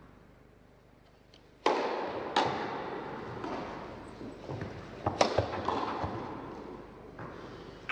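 Tennis ball struck by rackets during a rally in an indoor hall: a few sharp hits with a long echo after each, the loudest about a second and a half in, again a little later, and two close together past the middle, with fainter bounces between.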